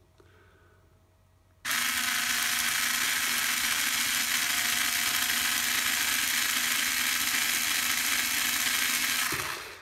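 Small cordless electric drill running steadily as a number 10 bit bores into a stripped screw, drilling a hole for a screw extractor. It starts abruptly about a second and a half in and spins down just before the end.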